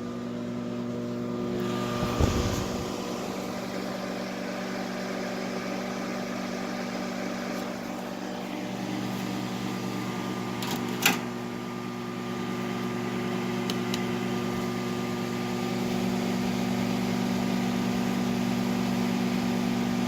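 GE microwave oven running on a test: a steady mains hum from its high-voltage transformer and fan. A knock comes about two seconds in and a sharp click near eleven seconds.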